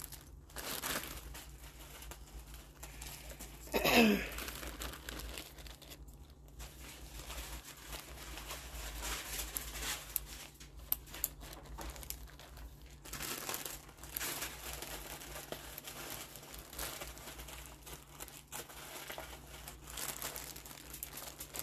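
Plastic zip-top jewelry bag crinkling as it is handled and worked open, with irregular crackles throughout. A brief vocal sound about four seconds in.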